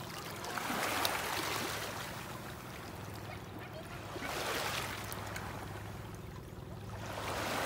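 Small waves washing in over a shallow pebble shore, each one swelling into a hiss and fading, about every three and a half seconds.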